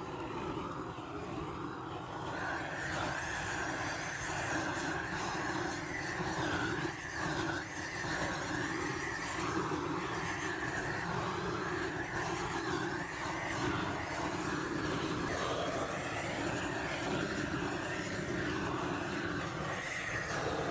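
Gas blowtorch burning with a steady rushing hiss as its flame singes the hair off a cow's head, growing a little louder about two seconds in.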